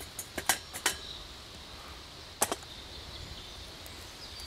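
A few quick, sharp knocks in the first second as a stick of wood is pushed into a metal Canway wood-gas camping stove to feed the fire, then a single louder clank about two and a half seconds in as the metal cooking pot is set back on the stove.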